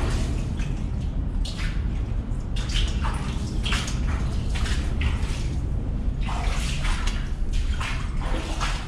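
Footsteps splashing through shallow water on a mine tunnel floor, a splash roughly every half second to a second, over a steady low rumble.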